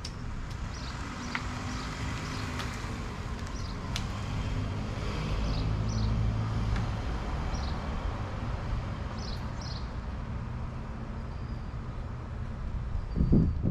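An engine running steadily with a low hum, with birds chirping over it and a low thump near the end.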